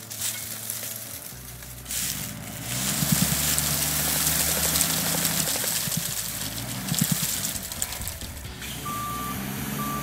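A pecan tree shaker's engine revs hard with a loud rushing hiss while it works a tree. Near the end its back-up alarm starts beeping steadily as it reverses.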